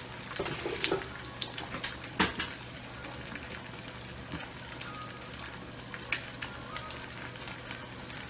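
Egg frying in a pan: a steady light sizzle with scattered sharp crackles and pops of spitting oil, one louder pop about two seconds in.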